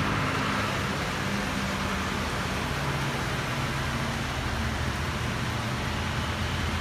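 Steady heavy rain hissing down, with cars and a motorbike driving along the wet street; the low hum of engines grows stronger about four seconds in.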